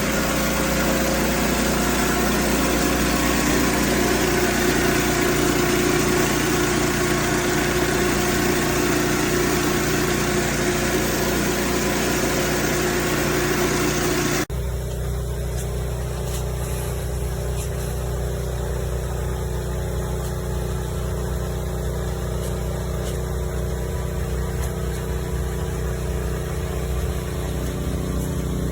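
Pressure washer running steadily, spraying through a surface cleaner. The sound changes character abruptly about halfway through, then runs on steadily.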